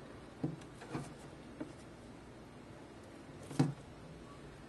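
A few soft finger taps on a smartphone lying on a table, then one louder, sharper tap about three and a half seconds in.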